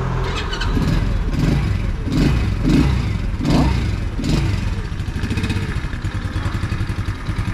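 Avelloz AZ1 50cc four-stroke scooter engine, cold and just started, blipped up and down on the throttle about six times, then settling back to an even idle about five seconds in.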